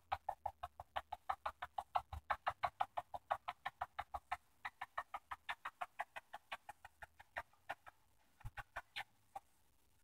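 Rapid kissing smacks on a cat, about five a second, keeping on for several seconds before trailing off into a few last kisses near the end.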